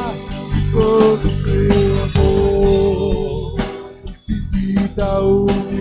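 Live worship band playing between sung lines: sustained keyboard chords with guitar over bass and drums, dropping away briefly about four seconds in.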